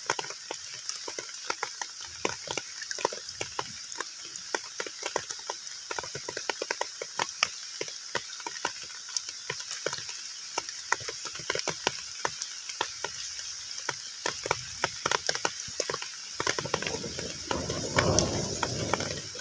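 Heavy rain falling on a pond's water surface: countless irregular drop splashes over a steady hiss. About three-quarters of the way through, a deeper, louder rushing of water builds up.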